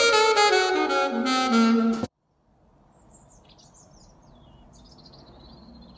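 Saxophone-led music that stops abruptly about two seconds in. After a brief gap come faint bird chirps over a quiet background hiss.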